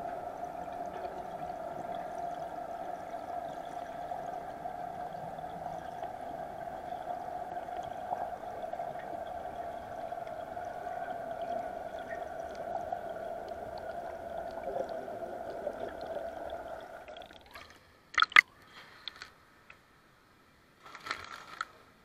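Underwater pool ambience: a steady hum with a constant tone, which fades out about 17 seconds in as the camera leaves the water. This is followed by a few short, loud splashes at the surface, one pair about a second later and another group near the end.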